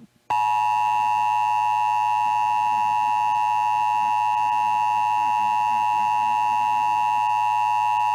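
Emergency Alert System attention signal: the steady two-tone alert tone (853 and 960 Hz together), starting about a third of a second in after a brief gap. It marks the start of an EAS alert, here a required monthly test.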